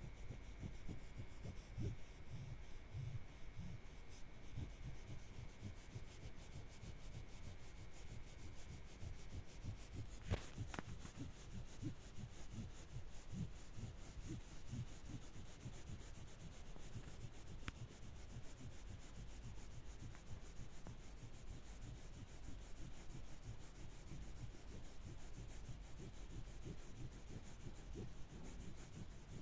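Faint rubbing by hand in irregular strokes, like a rusty wrench being scrubbed or polished. A faint steady high tone stops about ten seconds in, together with a single sharp click.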